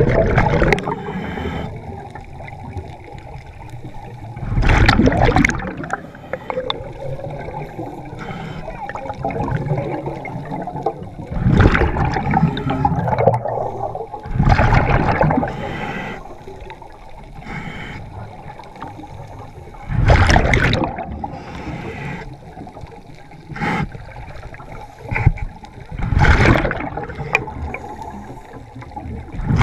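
A diver's scuba regulator heard underwater: a loud rush of exhaled bubbles about a second long, coming back every few seconds with each breath, over a steady underwater hiss.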